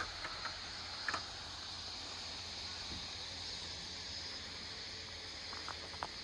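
Steady high-pitched chorus of insects over a low outdoor hiss, with a few faint clicks about a second in and again near the end.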